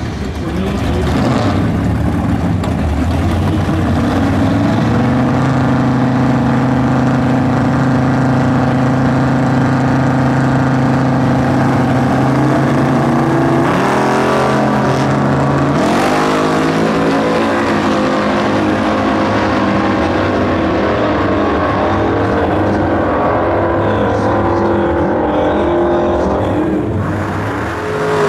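Two 1960s super stock drag cars, a Plymouth station wagon and another muscle car, with their V8s held at steady revs on the starting line, then launching about halfway in. The engines rise in pitch and step through the gears as the cars run away down the strip.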